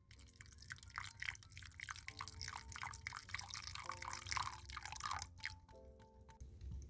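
Wire whisk beating an egg-and-cream custard mixture in a glass bowl: rapid clicking of the wires against the glass with wet splashing of the liquid, stopping shortly before the end.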